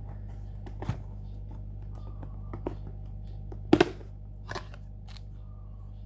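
Cardboard carton being handled and opened: a few short taps and scrapes of the box and its flaps, the loudest a double knock a little before four seconds in, over a steady low hum.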